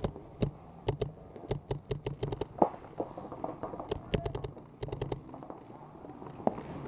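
Paintball markers firing in rapid strings of a few shots at a time, several strings in a row.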